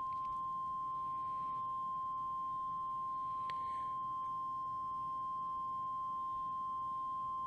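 A steady, unbroken pure tone of about 1 kHz, sounding while the Radioddity QT80 transmitter is keyed up for a spectral purity test.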